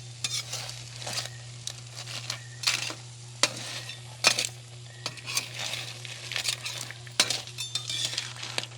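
A metal utensil stirring and scraping in a cooking pan, with irregular clinks and scrapes over food sizzling and a steady low hum.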